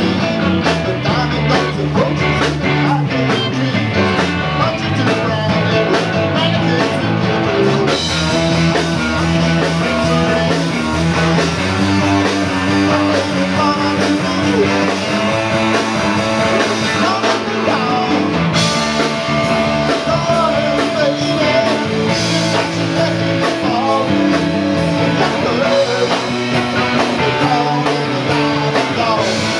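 Live rock band playing: electric guitars, bass guitar and keyboard over a steady beat, with a man singing into a microphone. The sound gets brighter and fuller about eight seconds in.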